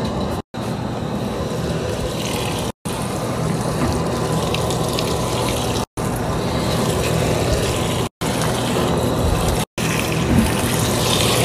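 Water running into a top-loading washing machine's drum as it fills, a steady rushing with a low hum underneath, broken five times by abrupt short dropouts.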